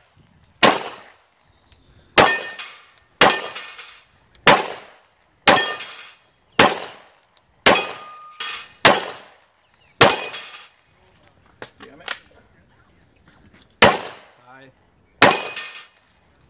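Handgun shots during an action pistol course of fire: about a dozen single sharp reports, mostly about a second apart, with a longer pause about two-thirds of the way through. One shot is followed by a brief ringing tone.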